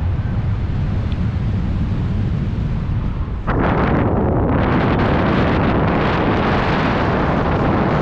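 Wind buffeting the camera microphone of a tandem paraglider in flight: a low rumble that turns abruptly, about three and a half seconds in, into a louder, fuller rushing.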